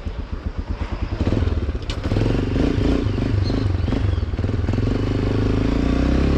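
Single-cylinder carbureted engine of a Victory MRX 150 motorcycle running at low revs while riding slowly. For the first two seconds it pulses slowly and unevenly, then it runs steadier and rises a little with throttle. The idle is set too low and is not holding.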